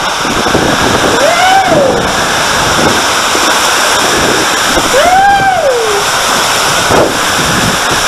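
Loud, steady rush of water as a raft slides down the enclosed tube of a family raft water slide. Twice, about a second in and again about five seconds in, a rider's drawn-out cry rises and falls in pitch.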